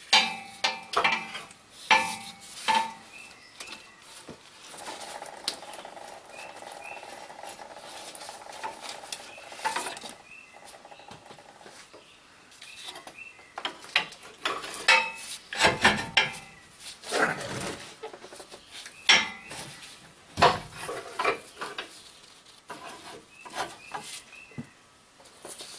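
Old rusted metal transmission cooler lines clinking, clanking and scraping against the truck's underside as they are tugged and worked loose by hand. The clanks come in irregular bunches and are loudest in the second half.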